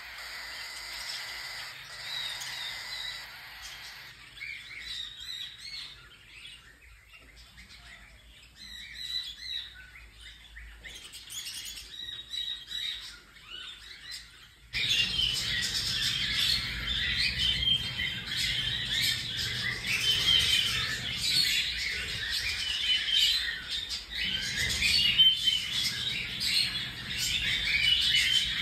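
Cockatiels chirping and calling: scattered chirps at first, then about halfway through a sudden jump to a dense, louder chorus of many birds calling at once.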